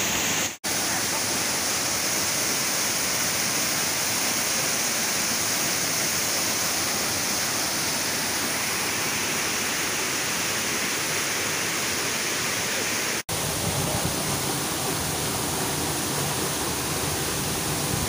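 Waterfall's falling water rushing steadily, cutting out for a split second about half a second in and again about thirteen seconds in. After the second break the rush has more deep rumble.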